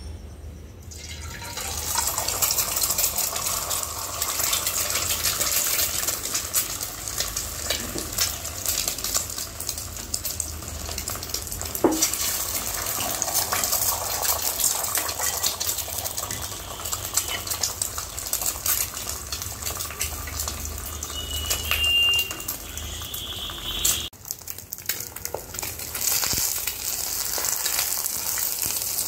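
Eggs frying in hot oil in a wok: a loud crackling sizzle that starts about a second in as the first egg drops into the oil and keeps going as more are ladled in, dipping briefly near the end before picking up again.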